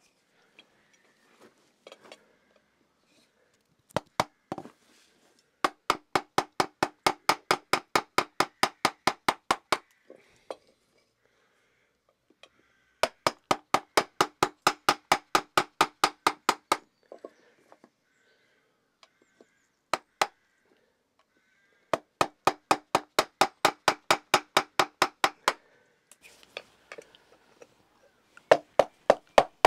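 Maul striking the handle of a carving gouge, hollowing the bowl of a wooden kuksa cup: quick runs of about five knocks a second, each run lasting about four seconds, with a few single knocks in between.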